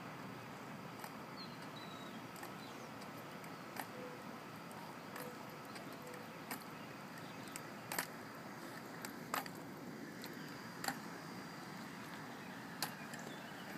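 Metal forearm crutches clicking on a concrete sidewalk with each stride: light, sharp clicks about every second and a half over a faint steady outdoor hiss.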